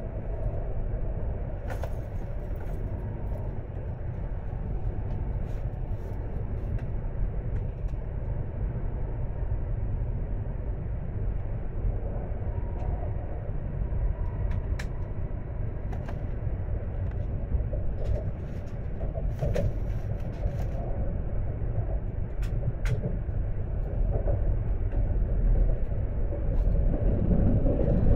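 Tohoku Shinkansen train heard from inside the carriage, running: a steady low rumble from the wheels and running gear, with scattered sharp clicks, growing louder over the last few seconds.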